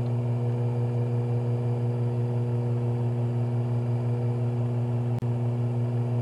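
Faceting machine's motor running with a steady, even hum, broken by a brief click about five seconds in.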